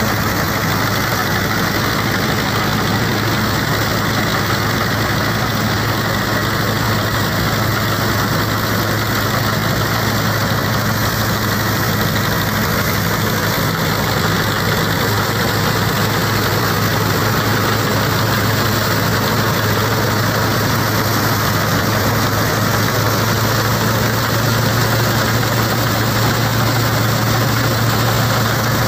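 Powertrac Euro 50 diesel tractor engine running steadily under load while it drives a Jagatjit straw reaper through the PTO, mixed with the whirr of the reaper's cutter and blower. The drone is loud and even, its pitch edging up slightly in the second half.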